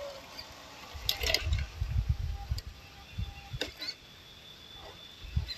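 MN99s Defender RC scale crawler working its way over rock and dry leaf litter: sharp clicks and crackles about a second in and again near four seconds, over a low rumble that is loudest in the first half.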